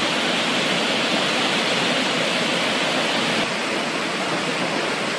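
Muddy, debris-laden flash-flood water rushing down a street in a steady, continuous torrent.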